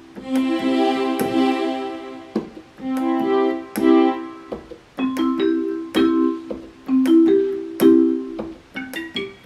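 Yamaha PSR-350 portable keyboard playing one of its preset voices. The same chord is struck again and again, about seven times, each ringing and fading away, with a few short quick notes near the end.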